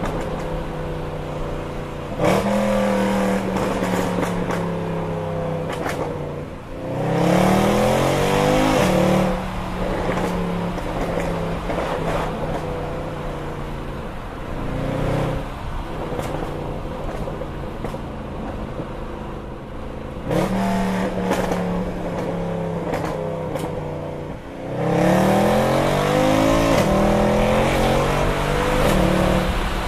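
2012 Mercedes C63 AMG's 6.2-litre naturally aspirated M156 V8, its exhaust fitted with a Milltek secondary cat delete and resonator delete, running under way. It pulls hard twice, about seven and about twenty-five seconds in, each time its pitch rising in steps with short breaks as it shifts up, and it jumps sharply in loudness about two and about twenty seconds in.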